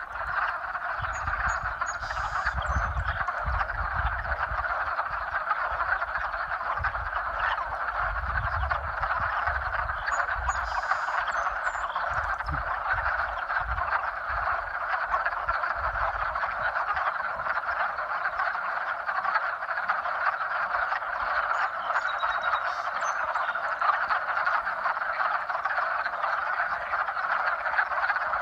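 A dense chorus of many frogs giving their spring mating calls at once, the overlapping croaks blending into one steady, unbroken din.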